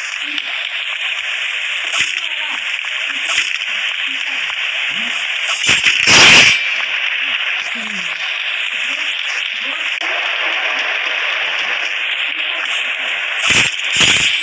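Steady, loud hiss like radio static or a noisy recording, with a loud crackling burst about six seconds in and two more near the end.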